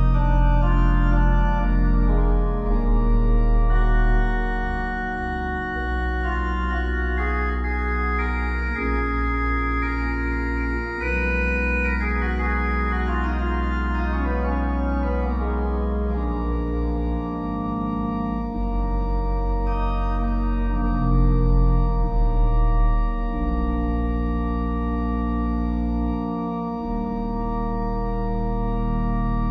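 Organ music: slow, held chords over a deep bass that change every few seconds, with a falling run of notes about halfway through.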